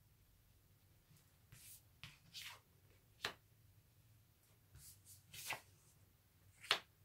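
Tarot cards being drawn from the deck and laid down on a cloth-covered table: a handful of faint slides and light taps at uneven intervals, the sharpest about three seconds in and again near the end.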